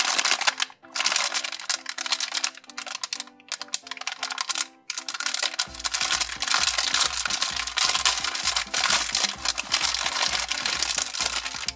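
Plastic packaging bag crinkling loudly as it is squeezed and pulled open, in bursts with short pauses, over background music that picks up a bass beat about halfway.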